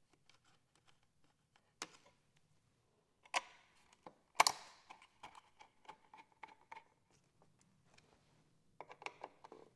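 Bolts being set and driven into a motorcycle battery box with a hand screwdriver: scattered small clicks and clinks, the loudest about four and a half seconds in, then a run of quick ticks with a faint ring, and another cluster of clicks near the end.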